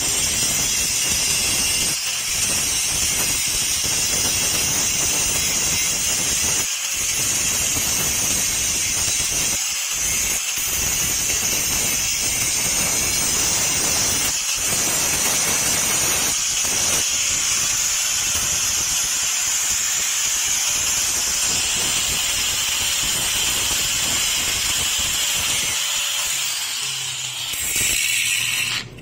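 Electric angle grinder with a grinding disc grinding the steel of an adjustable wrench held in a bench vise: a steady, high, hissing whine of disc on metal, with a few brief dips, cutting off at the very end.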